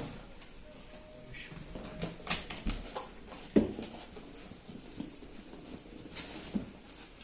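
Cardboard laptop box and its packaging being handled, with scattered rustles and clicks and one sharper knock about three and a half seconds in.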